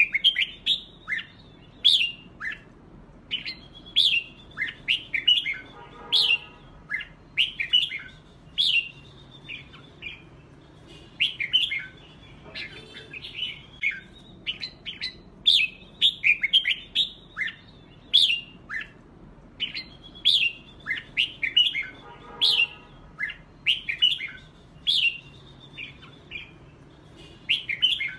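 Red-whiskered bulbul song: short, quick, chirpy phrases of sweeping notes, one after another with brief gaps.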